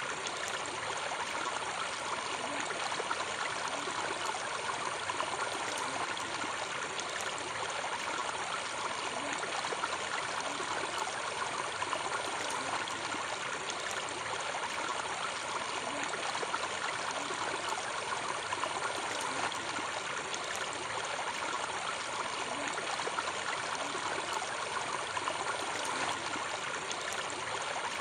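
Steady rush of moving water, an even hiss-like splashing with no single splashes standing out.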